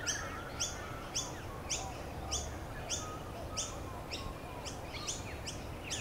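Nature-ambience sound effect of a bird chirping, short high chirps repeating evenly about twice a second over a faint outdoor hiss.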